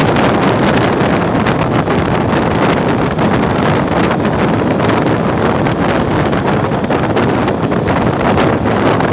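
Steady wind rushing over the microphone of a motorcycle cruising at road speed, with the riding noise of the bike mixed underneath.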